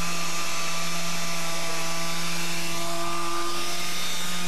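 Two-stroke chainsaw running steadily, a continuous drone held at one pitch.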